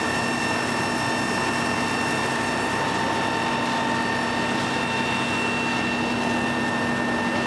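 Heavy diesel engines running steadily, a low drone with a constant whine over it.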